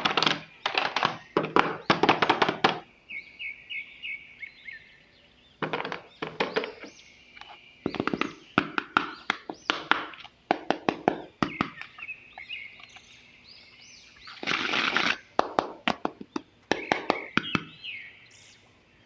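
Several bursts of quick clicks and knocks, with faint bird chirps in the pauses between them.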